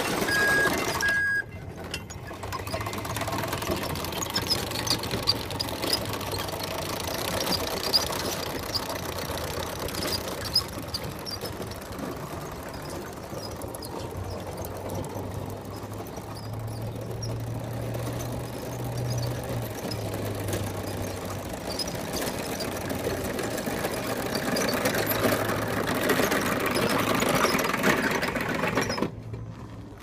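Homemade mini bulldozer's drive motors whirring steadily with a low hum as its steel tracks clatter over gravel, the whirr strengthening midway. A pulsing beep sounds in the first second or so, and the running sound cuts off suddenly near the end.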